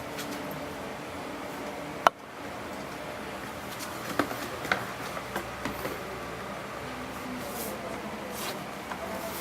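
Box and packaging being handled: one sharp click about two seconds in, then a cluster of small clicks and taps a couple of seconds later.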